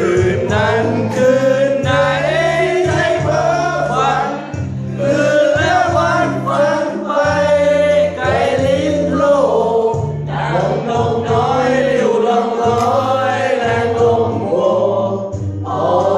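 A Thai song playing: sung vocals over a band with a bass line that changes note every second or two.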